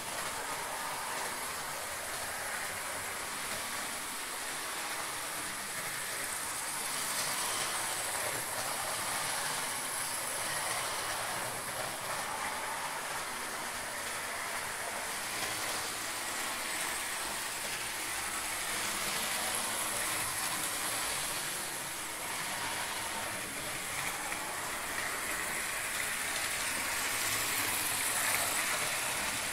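Model trains running on a model railway layout: a steady whir and rattle of the locomotives' small electric motors and of their wheels on the track.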